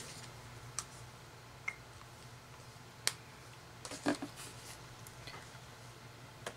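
Faint handling sounds of cross-stitching by hand: about half a dozen short, scattered clicks and ticks as the needle and thread work through the fabric, a few bunched together about four seconds in. A low steady hum sits underneath.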